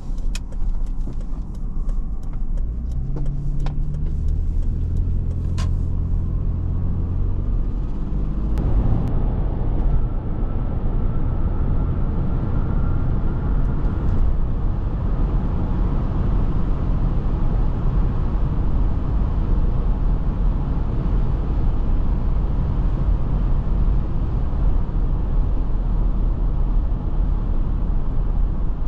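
Interior sound of a 2007 Toyota 4Runner Sport Edition being driven. Its engine hums and climbs in pitch over the first several seconds, with a few light clicks. From about eight seconds in, steady road and wind noise takes over as it travels at speed.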